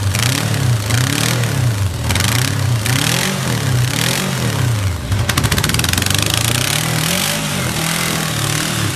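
Carburetted engine running with its speed rising and falling again and again, an unstable idle that the seller puts down to only a simple carburettor overhaul. A short burst of rapid ticks comes about five seconds in.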